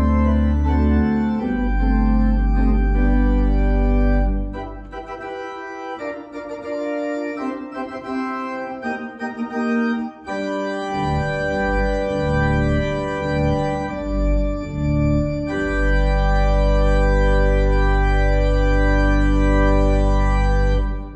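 Organ music in slow, held chords over a deep pedal bass. The bass drops away from about four seconds in and returns about ten seconds in, and the music ends abruptly at the close.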